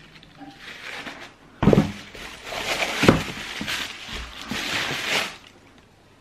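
Tissue paper rustling and crinkling as the stuffing is pulled out of a new shoe and the wrapping sheet is handled, with two dull bumps about one and a half and three seconds in.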